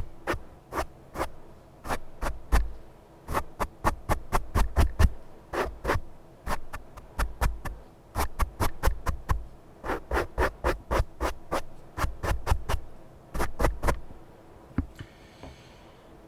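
Close-up ASMR scratching: dozens of short, sharp strokes in quick runs with brief pauses, each run carrying low thuds, stopping near the end.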